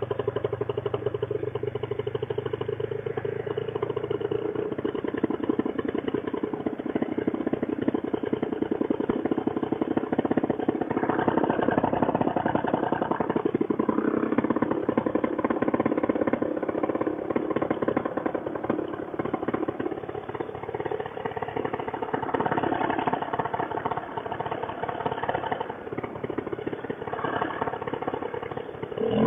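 Fresh Breeze Monster two-stroke paramotor engine idling steadily on the ground with a rapid, even firing pulse, then starting to rev up right at the end.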